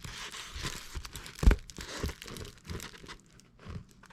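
Crinkling and rustling of a diamond-painting canvas and its plastic film being handled, with scattered crackles and one sharp knock about a second and a half in.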